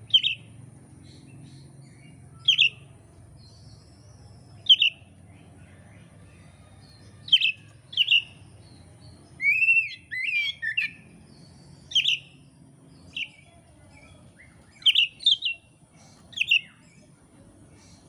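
Oriental magpie-robin (kacer) singing: loud, short whistled notes given singly or in pairs every second or two, with a quick run of several varied warbled notes about ten seconds in.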